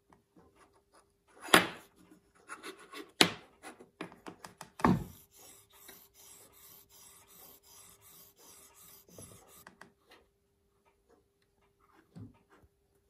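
Small metal hand vise holding a tiny watch-case part, worked back and forth on a flat plate: three sharp knocks, then a quick run of scraping strokes, about three a second, for some five seconds before stopping.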